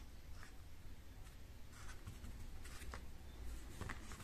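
Faint, scattered scratching and rubbing of fingertips on a silicone mould as soft homemade clay is pressed into it and the excess worked off, over a low steady hum.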